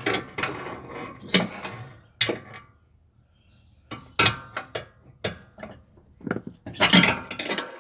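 Irregular metal clanks and knocks as the BMW X5 E70's old lower control arm is worked loose and pulled out of the suspension. A busy clatter at first, a short pause, then a string of separate sharp knocks, the loudest near the end.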